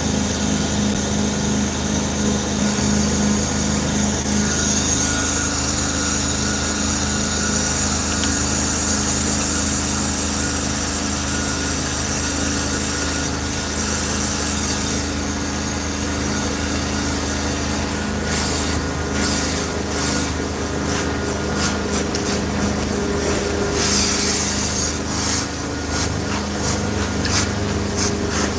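Carpet-cleaning extraction machine running steadily, a constant low hum under a high suction hiss through the hose. In the last third, short bursts of hiss come and go as the tool is worked on the chairs.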